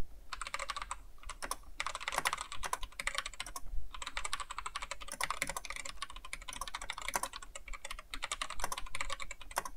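Fast typing on a computer keyboard: a run of key clicks at about seven or eight keystrokes a second, with a few brief pauses.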